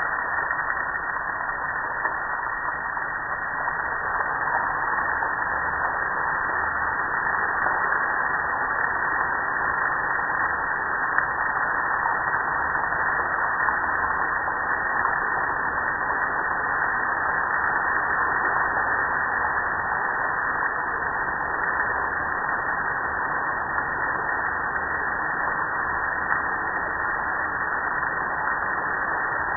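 Garden hose spray nozzle on its shower setting, running steadily and spraying water onto a gas grill: a constant hiss of water on the grill's metal lid and panels.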